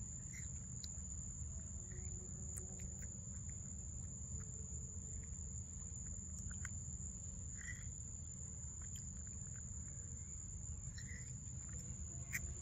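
Steady high-pitched insect drone with a low rumble underneath and scattered faint clicks and chirps.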